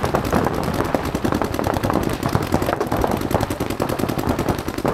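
Paintball markers firing in rapid strings, many sharp shots a second overlapping into a continuous rattle.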